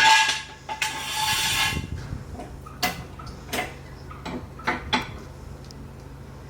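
Metal tools or parts being handled and set down. Two short rushes of rustling noise come first, then a handful of light metallic clicks and clinks, roughly one every half second, over a steady low hum.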